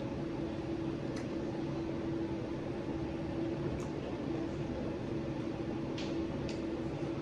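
Steady hum of a running ceiling fan, with a few faint clicks.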